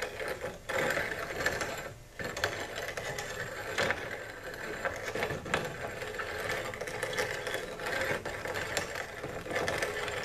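Grain grinder running, crushing chunks of pressed black powder into grains, with an uneven rattle and irregular clicks as the pieces break up; it drops off briefly about two seconds in.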